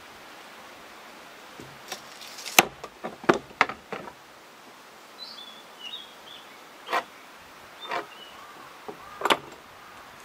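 Hand tools being handled on a wooden worktable: a quick cluster of sharp clicks and knocks about two seconds in, then single knocks roughly a second apart near the end, over a steady outdoor hiss. A few short bird chirps come in the middle.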